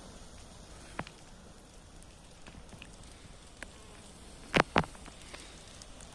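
Forest fire burning with a steady hiss and scattered crackles, with two loud sharp pops close together about four and a half seconds in.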